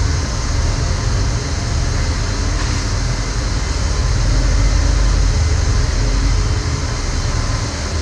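M142 HIMARS launcher truck's diesel engine running as it backs slowly up the loading ramp into a C-17 cargo hold: a heavy low rumble under a steady machinery drone with faint thin whine tones.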